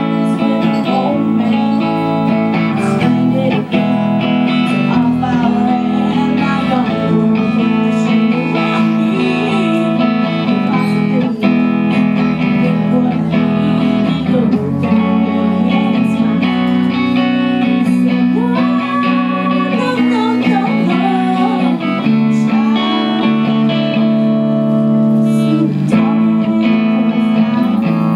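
Live rock performance: two electric Les Paul-style guitars through Marshall amps playing steady chords and lead lines, with a young woman singing into a microphone over them.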